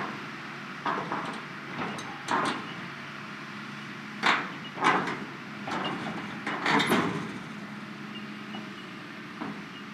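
Hitachi tracked excavator's diesel engine running steadily while its bucket bears down on a steel shipping container, the container's sheet-steel roof buckling with irregular metallic bangs and crunches, the loudest in the middle of the stretch.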